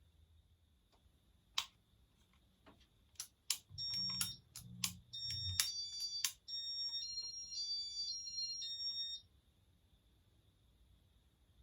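Clicks of button presses on a Casablanca Inteli-Touch fan control, answered by short high electronic beeps. These end in a run of about three seconds of beeps stepping between a few pitches.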